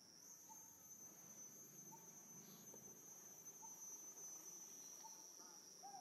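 Faint, steady high-pitched drone of insects (crickets or cicadas), with a fainter, even higher tone above it. Short, faint chirps come every second or so underneath.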